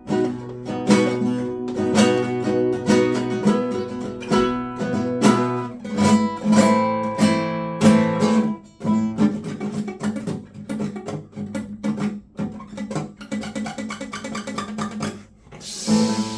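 Acoustic guitar played with the fingers rather than a pick: a steady run of plucked notes and ringing chords, with a brighter strummed chord near the end.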